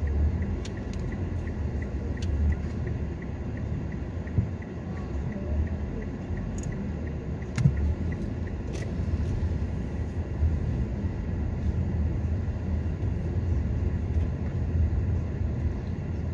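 Steady low rumble of a car driving slowly, with a few light clicks and knocks.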